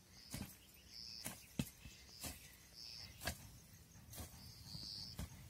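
Hand hoes striking wet clay soil in dull knocks, roughly one a second and irregular, as several people dig by hand. A short high chirp repeats every second or two behind them.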